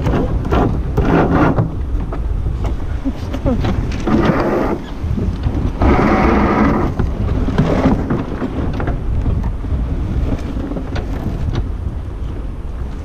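Strong wind rumbling and buffeting on the microphone aboard a sailboat under way, with several surges of louder rushing noise, about a second in, around four seconds and around six to eight seconds in.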